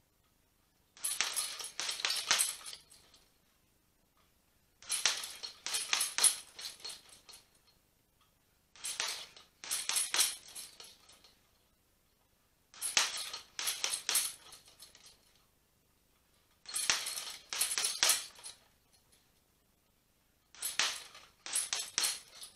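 Boxing gloves striking a hanging heavy bag in six quick combinations of several punches each, about four seconds apart.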